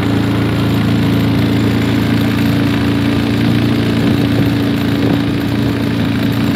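A small open fishing boat's motor running steadily while the boat is under way.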